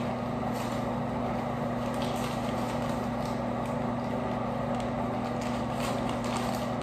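Steady low hum of a ventilation fan, with the light crackle of a sandwich's paper wrapper being unfolded by hand.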